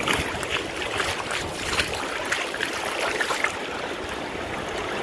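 Shallow seawater splashing and swishing as a small hooked fish on a hand line is dragged through the wash. There is a quick run of short splashes over the first three seconds or so, then a steadier wash.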